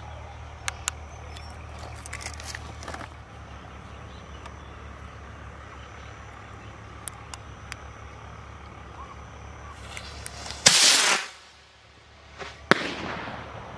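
Firework rocket launching from a glass bottle: a loud rushing hiss lasting about half a second, about eleven seconds in, as it ignites and takes off. A sharp crack follows a couple of seconds later, with a few small clicks before the launch.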